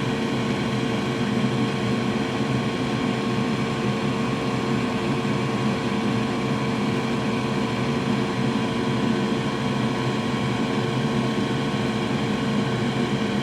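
Steady whir of a small electric blower running without change, with a constant hum and a couple of steady tones.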